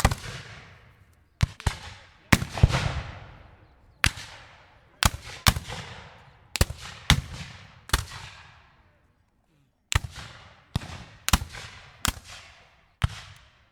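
Rifle-musket fire: about fifteen scattered shots at uneven intervals, some in quick pairs, each trailing a long rolling echo. There is a short pause just past the middle.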